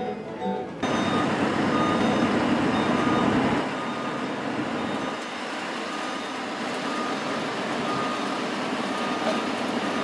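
A work vehicle's backup alarm beeping about once a second over steady engine and outdoor noise. A short bit of guitar music ends about a second in.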